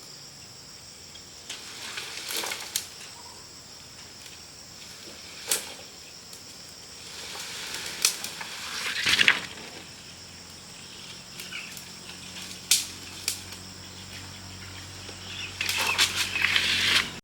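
Short knocks and rustles from hand work, scattered irregularly, with a denser run of them near the end, over a steady drone of insects.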